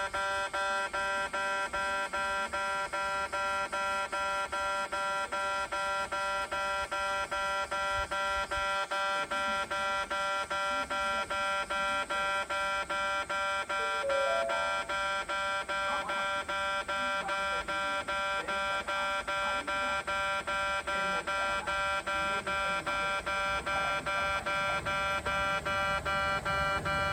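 Electronic railway level-crossing alarm of the 'pe-pe' type, ringing with a fast, even repeat of the same tones: the crossing is closed for an approaching train.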